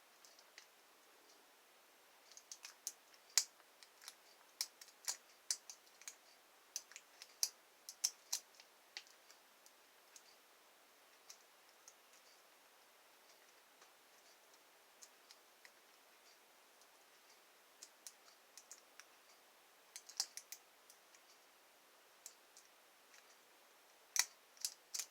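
Lock picks working the pins of a pin-tumbler lock: faint, irregular small clicks and ticks, coming thickly for several seconds, thinning out in the middle, then bunching again near the end.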